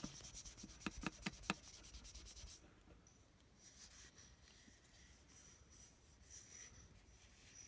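Fingers and palm rubbing the matte black tube of a rifle scope, a faint dry swishing, to buff out scratches in the finish. A few light ticks come about a second in, and the rubbing grows fainter after the first two or three seconds.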